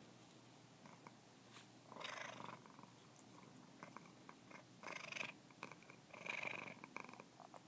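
Domestic tuxedo cat purring in about three short spells while it chews and suckles on a person's fingers, with small clicks of its mouth in between.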